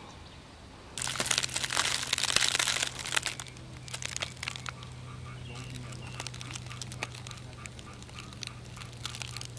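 Dry leaves and crop litter crunching and crackling, loudest for about two seconds starting a second in, then thinning to scattered crackles. A low steady hum runs underneath.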